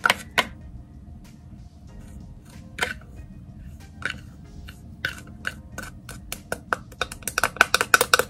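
Light clicks and taps as coffee grounds are tipped from a measuring cup into the filter of a cold brew coffee maker. They come sparse at first and quickly near the end.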